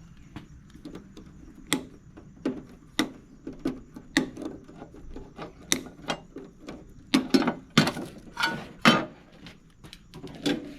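Irregular clicks, knocks and scrapes of metal and plastic parts being handled while a PTAC air-conditioner's control box and wiring are pulled apart, busiest and loudest between about seven and nine seconds in.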